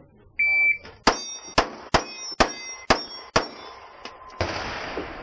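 A shot-timer beep, then six quick 9mm Glock pistol shots about half a second apart, with steel plate targets ringing after the hits. A stretch of hiss follows near the end.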